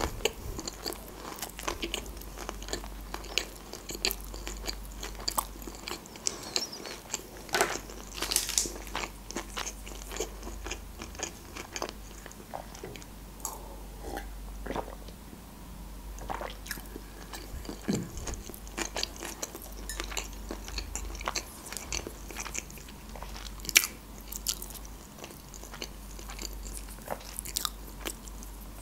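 Close-miked chewing of stir-fried noodles: wet mouth clicks, smacks and swallows, with gulps of water from a glass about halfway through.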